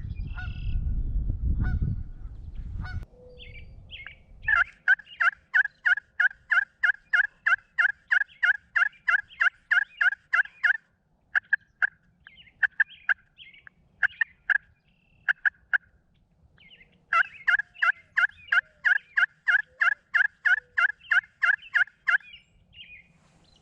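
A bird calling in long, rapid, evenly spaced series of sharp notes, about four or five a second: one run of about six seconds, a few scattered notes, then a second run of about five seconds. A low rumbling noise stops about four seconds in.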